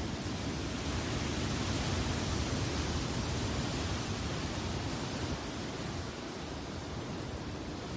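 Ocean surf breaking and washing over a rocky shore, a steady rush that swells through the first few seconds and eases after about five seconds.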